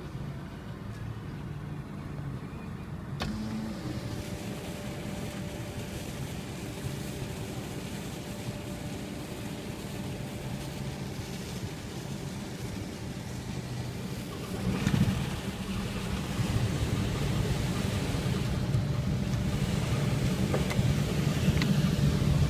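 Diesel engine of a small coastal cargo ship running with a steady low drone while it manoeuvres alongside the quay, its propeller churning the water at the stern. The engine and wash grow louder from about halfway through as the propeller works harder.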